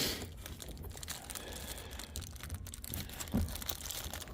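Plastic parts bag crinkling and rustling as small parts are handled, with light clicks and a short low vocal sound about three seconds in.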